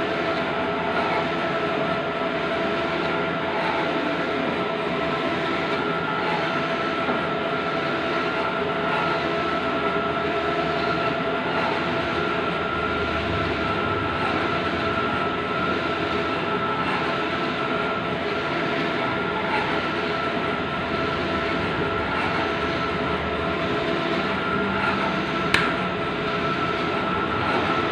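Bluewin wide-format outdoor banner printer running: a steady mechanical hum with a constant high whine, and a single sharp click about 25 seconds in.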